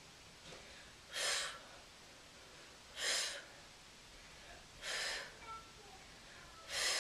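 A woman's forceful exhales through the mouth, four short puffs about two seconds apart: paced breathing in time with side-bend repetitions.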